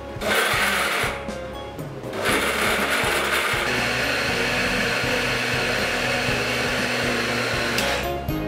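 Flying YX-470S 350 W blender with its 1.5 L stainless steel jar, motor and blades running: a short burst of about a second, then after a brief pause a steady run of about six seconds that cuts off shortly before the end.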